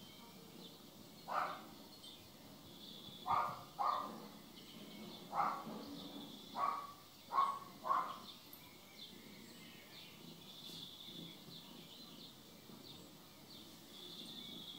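Seven short, high cries from a small pet, coming unevenly over about seven seconds, some in quick pairs. Faint bird twittering runs underneath.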